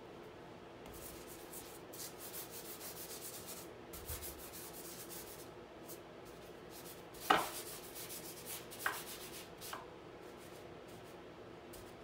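Paint being scraped onto a stretched canvas with a brush or palette knife in quick, rapid strokes for a few seconds. A sharp knock comes a little past halfway, followed by two lighter ones.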